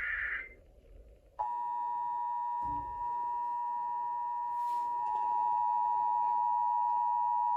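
The last of the EAS data header bursts ends about half a second in. About 1.4 s in, the Emergency Alert System two-tone attention signal starts and holds steady, announcing a Hazardous Materials Warning.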